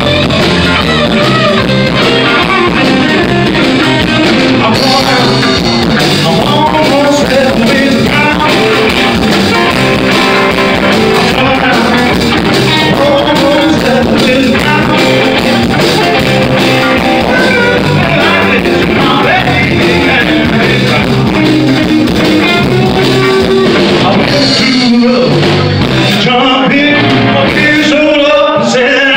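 A live blues-rock band playing loudly on electric guitars and drums, the music running without a break.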